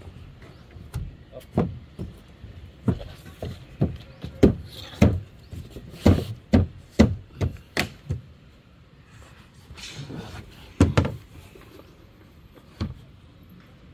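Hammer driving nails into plywood subfloor sheets over timber joists: a run of about fifteen sharp blows, two or so a second, then a pause and a few more blows near the end.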